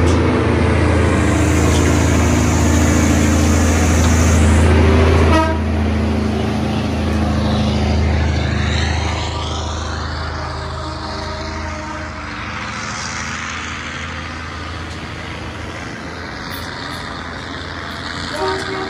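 Heavy diesel dump truck engine pulling uphill, loud for about five seconds, then dropping off suddenly and fading as the truck goes by. A short horn toot comes near the end.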